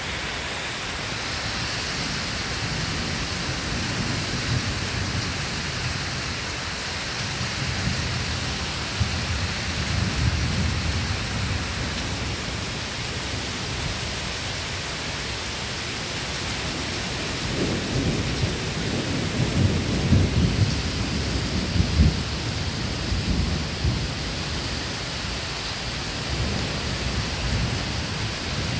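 Thunderstorm: a steady hiss of rain with low thunder rumbling through it. There is one rumble about a third of the way in and a longer, louder one about two-thirds of the way through.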